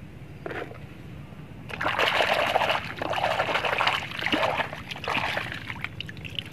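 Water splashing and trickling as a muddy toy car is washed, starting about two seconds in and going on irregularly for about four seconds.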